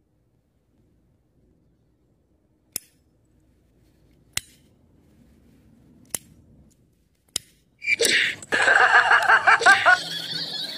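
Four sharp, single clicks a second or two apart from a hand-held disposable lighter being struck. Near the end a loud stretch of wavering, pitched cries follows.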